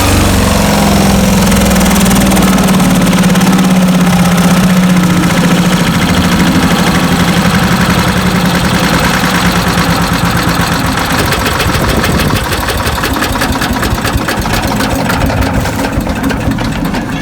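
Landworks 7 hp chipper shredder's gas engine running steadily under load with its shredder rattling, then stopping abruptly near the end.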